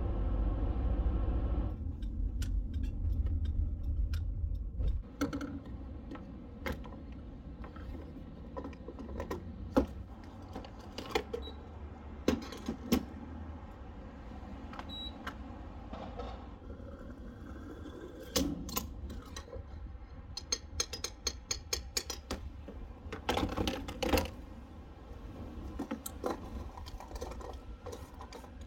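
Low road rumble inside a moving car for the first few seconds. Then a string of short sharp clicks, taps and rattles from handling a gas pump, and from opening the car's fuel filler door near the end.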